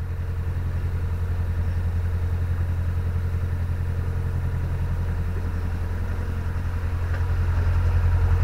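Narrowboat's diesel engine running steadily under way, a low, fast, even pulsing beat that grows a little louder near the end.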